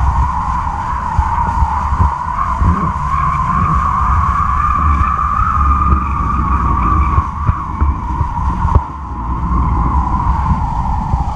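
Wind rushing over a camera mounted high on a kite's flying lines, with a steady high-pitched hum that drifts slightly up and down, the taut kite lines singing in the wind. Under it is heavy low wind buffeting on the microphone, and a few sharp knocks come about seven to nine seconds in.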